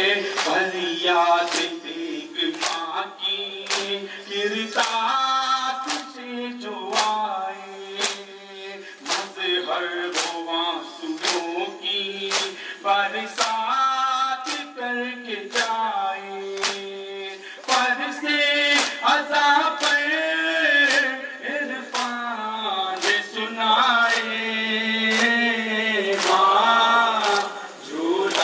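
Men chanting a noha, a Muharram lament, together. A sharp slap falls about every two-thirds of a second, the beat of chest-beating matam.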